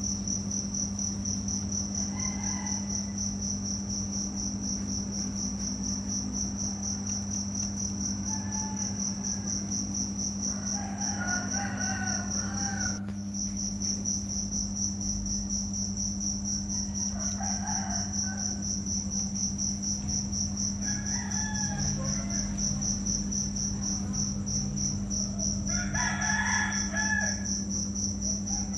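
Steady, high, finely pulsing insect trill like crickets, pausing briefly about halfway through, over a low steady hum. Short pitched calls come every few seconds, the loudest near the end.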